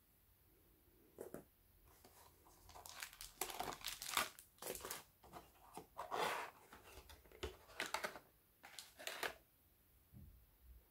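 Cardboard and plastic packaging being handled: a run of irregular rustles, scrapes and crinkles as a phone box's cardboard insert is lifted out and the accessories underneath are unpacked. The sounds are loudest a few seconds in and stop shortly before the end.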